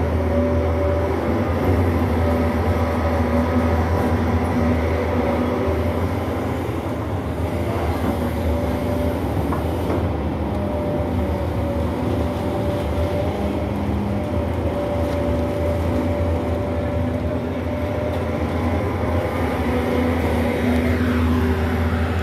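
Doosan crawler excavator working: a steady low diesel drone with a hydraulic whine that comes and goes as the boom and bucket move.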